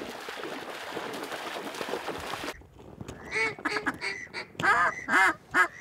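A steady hiss that cuts off abruptly about two and a half seconds in, then a quick run of short, loud duck calls with a held piping whistle among them: a mallard drake whistle blown to call ducks in.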